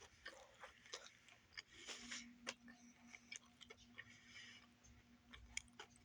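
Faint chewing and mouth clicks from someone eating a sandwich, with scattered small ticks. A faint low hum sets in about two seconds in.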